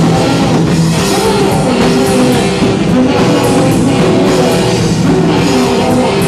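Live band playing loud, dense rock music with guitar and drum kit, cymbals struck at a regular beat.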